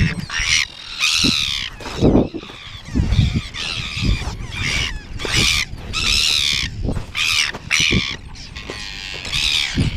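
A nesting bird colony calling, many harsh, overlapping squawks in quick succession from adults defending their nests.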